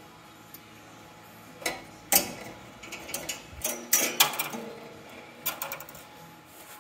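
Sharp metal clicks and clinks from parts being handled at a bandsaw mill's blade guide block. A single clack about two seconds in is the loudest, with a quick run of small ticks a little before the end.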